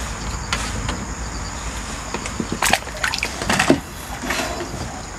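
Water splashing and sloshing as a hooked crucian carp is brought to the surface and scooped into a landing net, with a few sharp splashes between about two and a half and four seconds in.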